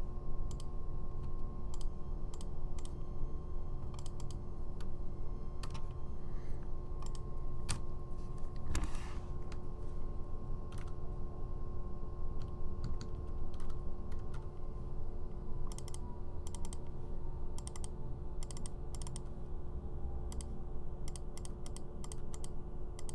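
Computer keyboard typing in irregular short runs of keystrokes and single clicks, busier in the last third, over a steady low hum.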